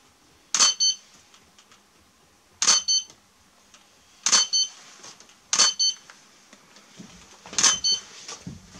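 Camera shutter firing five times, each frame a quick double click with a short, high electronic beep.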